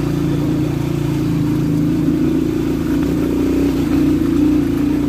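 Motorcycle engine running at a steady pitch while riding.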